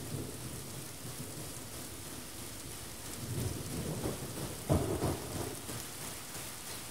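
Steady rain with thunder rumbling low underneath; the rumble swells a little past halfway, with one sharper, louder clap.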